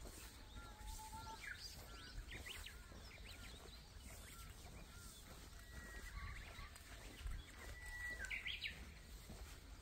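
Several small birds calling in a series of short, quick chirps, with a thin whistled note about a second in and a longer, higher whistle in the second half, over a low steady rumble of wind.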